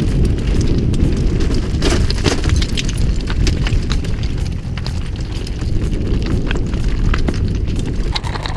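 Wind rumbling on a helmet-mounted action camera's microphone during a fast mountain-bike descent of a rocky trail, with many short clattering knocks from the tyres striking loose stones and the bike rattling.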